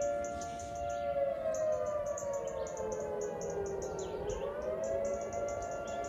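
Federal Signal 2T22 dual-tone rotating tornado siren sounding a steady two-note chord during its monthly test. About a second in, the pitch sags lower over a few seconds, then rises back to the steady chord near the end.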